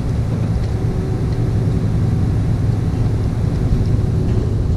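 Tractor-trailer truck's diesel engine and road noise heard from inside the cab while cruising on the highway: a steady low drone.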